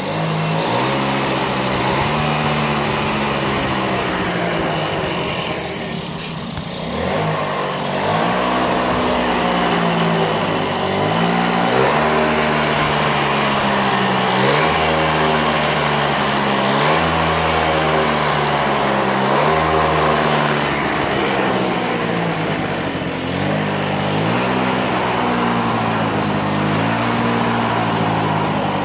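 Yamaha Passola SA50 moped's small two-stroke engine running, the throttle opened and eased off over and over so that its pitch rises and falls every couple of seconds. It won't idle, which the owner puts down to dirt still left in one of the carburettor jets.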